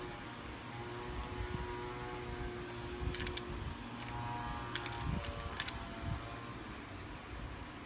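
A steady machine hum with a few faint steady tones, broken by short sharp clicks about three seconds in and again around five seconds in.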